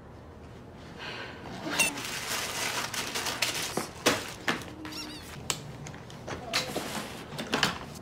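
Quiet household sounds: scattered light clicks and knocks of things being handled, with a few brief high squeaks.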